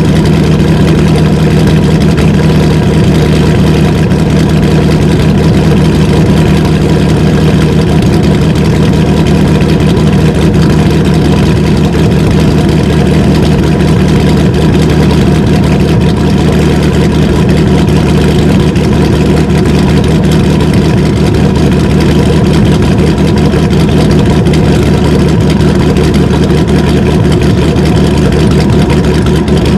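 Cammed 6.1-litre Hemi V8 of a Dodge Challenger SRT8 idling steadily through catless midpipes, resonator-deleted exhaust and stock mufflers, heard at the tailpipes.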